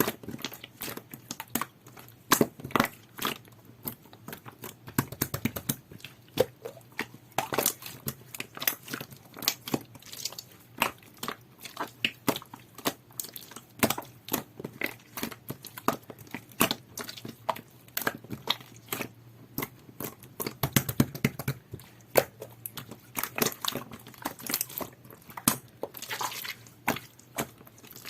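Jelly-textured two-layer slime being squeezed, poked and stretched by hand, giving a dense, irregular run of small sticky clicks and pops.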